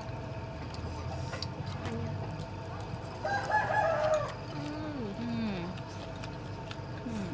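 A rooster crows once, a little over three seconds in, a call of about a second.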